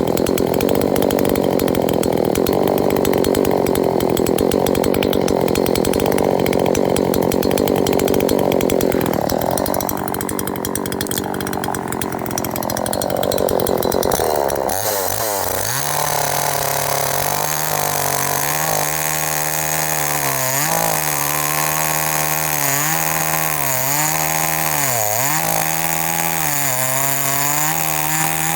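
A 39.6 cc two-stroke gasoline chainsaw running hard. About halfway through, the sound changes to a clearer engine note whose pitch dips and recovers every second or two.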